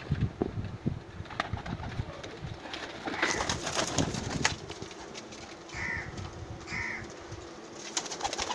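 Domestic pigeons cooing in a loft, with sharp wing flaps and clatter as a bird takes off and lands on the wooden perch.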